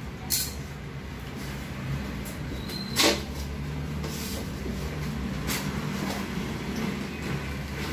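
Cardboard box being slit open and its flaps pulled back, with a few sharp cardboard snaps and knocks, the loudest about three seconds in, and rustling of packaging over a steady low hum.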